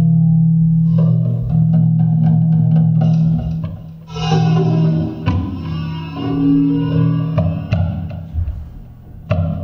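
Background music: plucked guitar over a sustained bass line.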